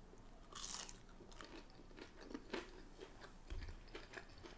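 Faint close-up chewing of a chicken nugget, with soft mouth clicks and a brief louder smack under a second in. A soft low thump about three and a half seconds in.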